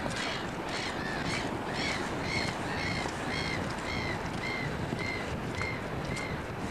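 A bird calling over and over, a series of short arched calls about twice a second, over a steady background hiss.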